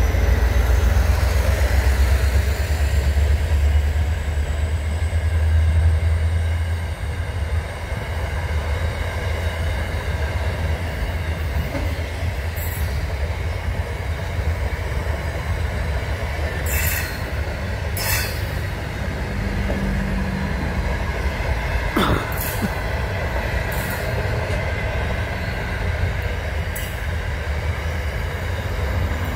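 Long container freight train passing close by: a steady rumble of wagons on the rails, heaviest for the first six seconds or so, with a few sharp clanks further on.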